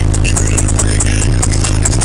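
Rap track played very loud through a car audio system, four DS18 18-inch subwoofers on two DS18 Hooligan 15k amplifiers, heard inside the cabin, with a heavy, sustained bass line.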